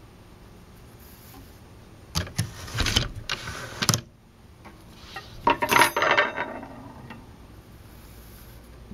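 Wooden table loom clattering as its harnesses are changed: a run of clicks and knocks about two seconds in, then a denser metallic jingle of the wire heddles and frames around the middle, while warp spacer sticks are laid into the shed.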